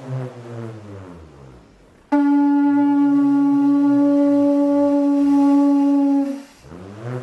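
A bull roarer whirring, its pitch swelling up and down in slow waves. About two seconds in, a Charonia variegata triton-shell trumpet starts suddenly on one long, steady, low note, held for about four seconds. The bull roarer keeps whirring faintly beneath the note and grows louder again near the end.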